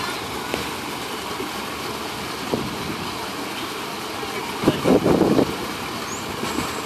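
Steady outdoor background noise from a crowd around a pool, with a brief louder sound about five seconds in.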